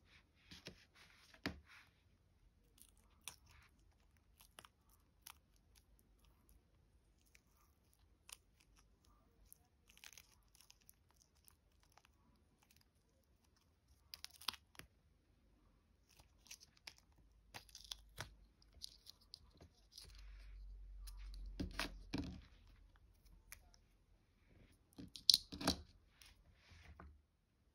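Flexible silicone mold being bent and peeled off hard cast pieces: scattered crackling, sticky peeling and sharp fingernail clicks, with a soft handling rumble about two-thirds through. The loudest clicks come near the end as pieces are set down on the pile.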